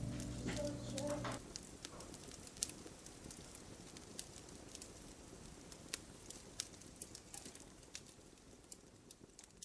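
Wood fire crackling, with irregular sharp pops over a low hiss that grows fainter toward the end. Other pitched sound, music or a voice, stops about a second and a half in.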